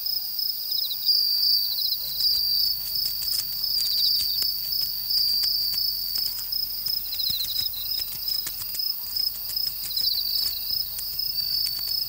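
Night insect chorus: a steady high-pitched trill with crickets chirping in short repeated bursts over it. From about two seconds in, scattered faint clicks join it.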